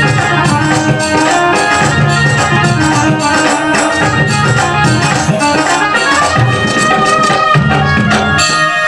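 Live Rajasthani devotional folk music: an instrumental passage with hand drums and jingling percussion over held melodic tones. The drumming stops about eight and a half seconds in, leaving a sustained tone.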